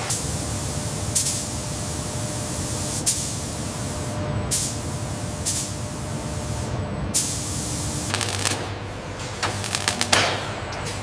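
Factory machinery ambience: a steady low hum broken by several short, sudden bursts of hiss like air or spray releases, and a quick run of clicks and ticks near the end.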